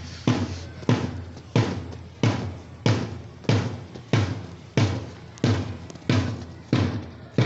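A drum struck on a steady marching beat, about three strokes every two seconds, each stroke ringing out briefly, keeping time for people marching in step.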